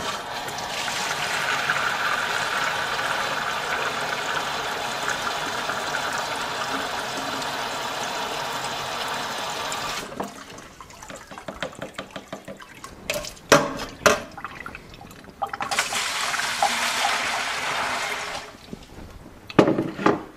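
Water running from a garden hose into a plastic measuring beaker, a steady stream for about ten seconds, then a few knocks and clunks, then a second, shorter fill of about three seconds, with more knocks near the end.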